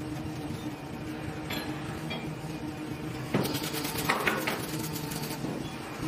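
Steady machine hum from an automated welding cell. From about halfway in comes a run of sharp metallic clinks and clanks as the rail-guided vehicle and positioner clamps engage the steel workpiece.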